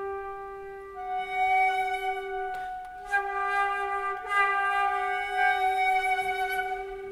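Two flutes playing a contemporary duet: one holds a long steady low note while the second flute enters about a second in with higher notes that move in pitch. A sharp breathy attack comes about two and a half seconds in.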